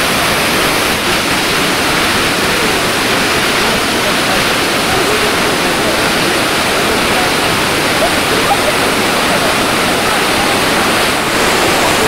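Large waterfall with several cascades plunging down a cliff: a steady, dense rush of falling water, a little louder from about eleven seconds in.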